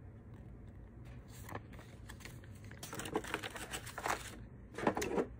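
Handling noise from a plastic tool case: paper rustling and plastic clicks as the paper guide and torque wrench are moved about. It comes in short clusters, with the loudest near the end.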